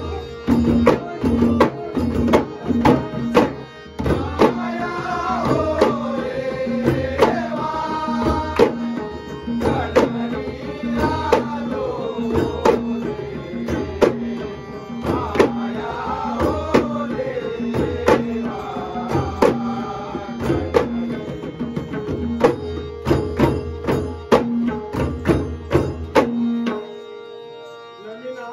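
Ghumat clay-pot drums beaten in a fast, dense rhythm by a group of drummers, under a man singing a Konkani Shimga folk song in long wavering phrases over a harmonium's held notes. The drumming stops about two seconds before the end.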